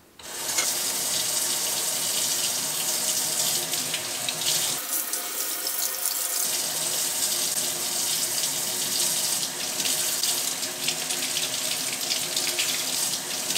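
Kitchen faucet turned on about half a second in, then running steadily, the stream splashing over green beans being rinsed by hand in the sink.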